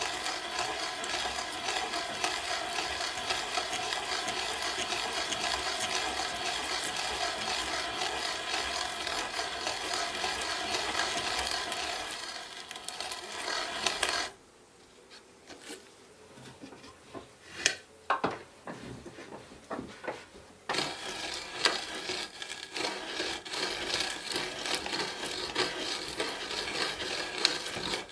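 Hand brace turning an auger bit through a pine board: a dense rasping as the bit shaves the wood, with fine rapid ticks. About halfway it stops suddenly, leaving a few light knocks, then the boring resumes for the last several seconds.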